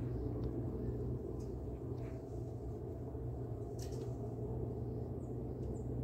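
Outdoor ambience: a steady low rumble, with a few faint ticks and two short, faint, high bird chirps near the end.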